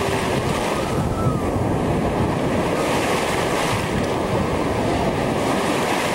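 Shallow surf washing in at the shoreline, with wind rumbling on the microphone. A wave rushes in and splashes about three seconds in.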